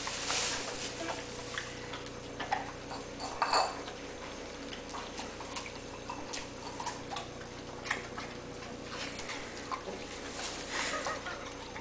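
Giant schnauzer eating fruit salad from a ceramic bowl on a tiled floor: irregular clicks and clinks of the bowl and her teeth, with chewing.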